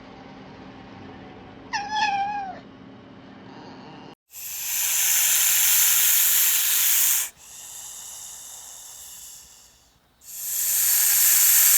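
A domestic cat meows once with a falling pitch. Then it hisses: two long, loud hisses with a quieter stretch between them.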